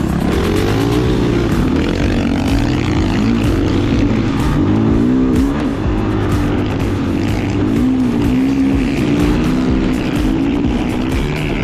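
Off-road vehicle's engine revving up and down again and again under load, over background music.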